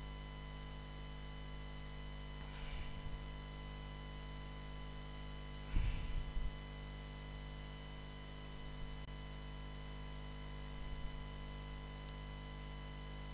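Steady electrical hum made of several steady tones, with a few soft low thumps, the loudest about six seconds in.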